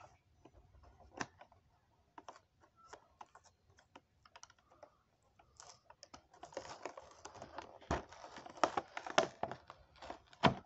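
Hands handling and opening a cardboard-and-plastic blister box of toy cars: sparse light clicks and taps at first, then from about six seconds in a denser run of clicking and rustling as the packaging is worked open.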